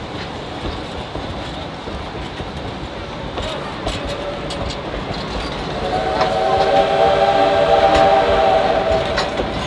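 Wooden passenger cars rolling past with steady rail noise and a few sharp clicks. About six seconds in, the steam locomotive No. 108 sounds one long whistle blast of several tones at once, lasting about three seconds.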